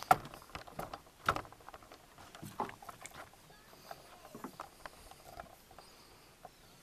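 Irregular knocks and clicks of fishing gear being handled on a wooden platform, with a landing net being set down on the boards; the two loudest knocks come in the first second and a half.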